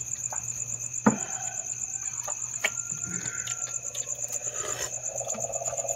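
Crickets chirping in a steady, fast-pulsing high trill, over a low steady hum. Scattered clicks and knocks from spoons and hands on plates and crab shells; the sharpest is about a second in.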